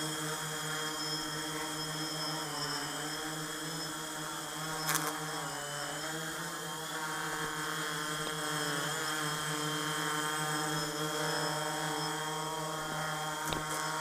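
Electric quadcopter hovering, its rotors making a steady multi-tone hum whose pitch wavers slightly as the motors adjust. There is a sharp click about five seconds in and another near the end.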